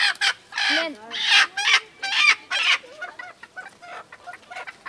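Chickens clucking, a rapid run of short calls.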